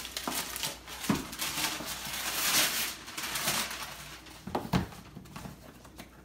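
Gift bag and wrapping paper rustling and crinkling as they are pulled apart and handled, heaviest in the first three seconds, followed by a couple of light knocks.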